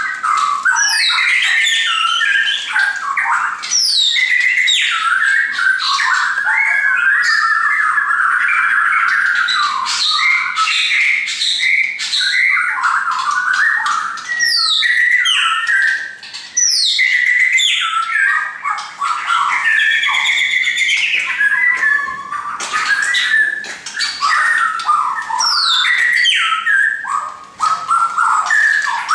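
Caged shamas, white-crowned and white-rumped, singing loudly and almost without pause: a rich, varied run of clear whistles and fast down-slurred notes, broken only by a couple of brief gaps.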